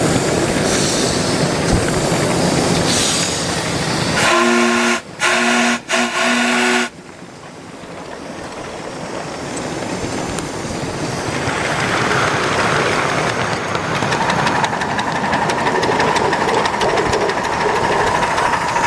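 Live-steam 2-8-2 Mikado scale locomotive running with its train on the rails. About four seconds in its whistle sounds three blasts, the last one longest. Then the running sound drops and builds up again gradually.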